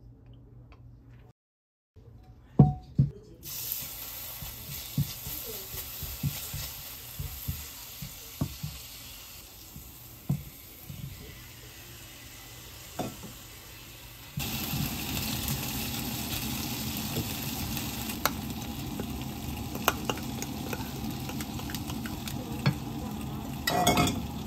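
Sliced potatoes frying in oil in a ceramic frying pan: a steady sizzle with the clack of a spoon stirring and turning the slices. A few loud clacks come near the start, and the sizzle steps up louder about halfway through.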